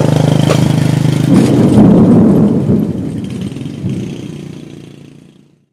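Small motorcycle engine running steadily, then revving up about a second in and fading away.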